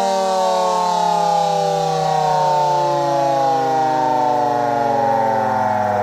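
3D-printed miniature Secomak GP3 air raid siren, a small 6-volt DC electric siren, sounding several tones at once as a chord while its pitch falls slowly and steadily as it winds down.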